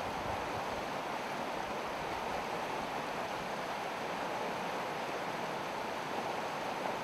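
Steady rush of a river running over rapids and stones.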